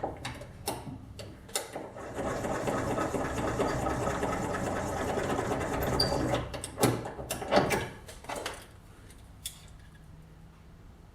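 Case trimmer cutting a .223 Remington brass case to length: a steady whirring of the cutter on the brass for about four seconds. Clicks of the case being handled come before it and a few louder clicks follow.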